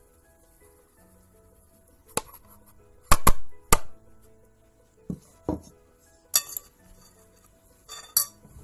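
A metal spoon knocking and clinking against a metal mixing bowl while stirring a batter of shredded squash, egg and flour: about eight irregular strikes, the loudest bunched together about three seconds in.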